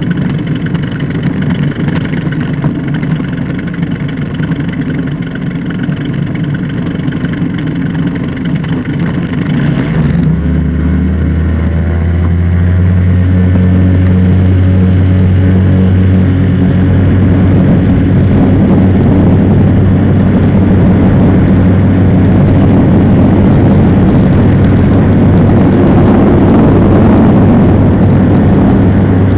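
Engine and pusher propeller of a North Wing ATF ultralight trike running at low power, then opened up to full throttle about ten seconds in and held there, steady and louder: takeoff power for the ground roll and climb-out.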